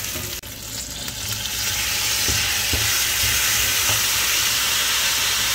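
Sliced red onions and chopped tomatoes sizzling steadily in hot oil in a stainless steel pot while a wooden spatula stirs them. The sizzle grows louder about two seconds in and then holds.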